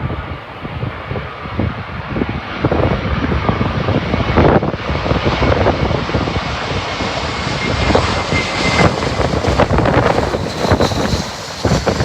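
Airbus A321 twin jet engines on landing approach: a steady jet noise with a faint whine that rises slightly, under heavy gusting wind buffeting the microphone.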